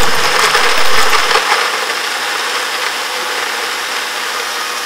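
Countertop blender running steadily.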